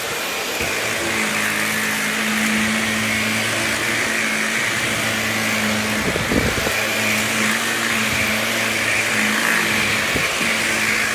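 Vacuum cleaner running steadily: a motor hum under a loud rush of air. A low thump comes about six seconds in and a lighter one near the end.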